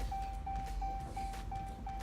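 A vehicle's door-open warning chime beeping rapidly, about three beeps a second, over a low rumble.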